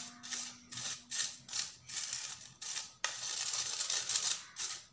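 Powdered sugar being sifted through a steel mesh sieve, worked through by hand to break up lumps: a rhythmic scratchy swishing of about two strokes a second.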